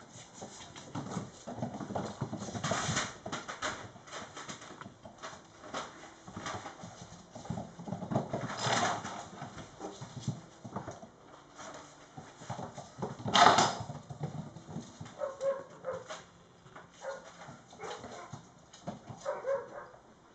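Young mastiff puppies moving about on a hardwood floor: irregular paw clicks and scrabbling, with several louder scuffles, the loudest about two-thirds of the way through. Near the end come a few short puppy yips or whimpers.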